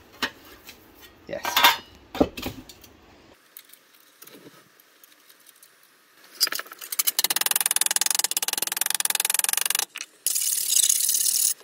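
Metal tools clattering as they are handled on a workbench. Then, from about six seconds in, a fast run of light hammer blows on a MIG-welded steel plate, planishing the weld flat, with two short breaks.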